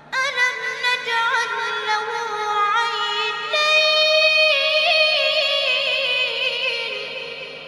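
A child reciter's high voice chanting Quranic recitation in the Egyptian mujawwad style: two long melismatic phrases with ornamented turns, the second fading into the hall's echo near the end.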